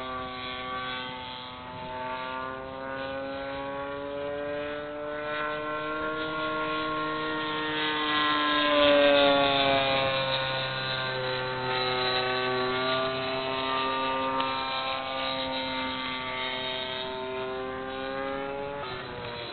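O.S. 1.60 glow engine of a quarter-scale SIG Extra 300 radio-control plane running in flight, its note slowly rising and falling. It is loudest about nine seconds in as the plane passes close, and then the pitch drops.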